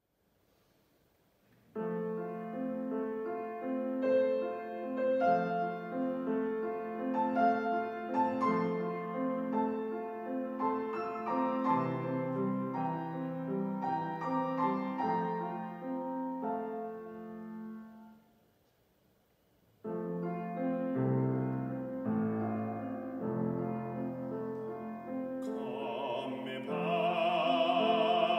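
Piano playing a classical art-song introduction, breaking off to near silence for a moment around the middle, then starting again. Near the end, a baritone voice enters singing with vibrato over the piano.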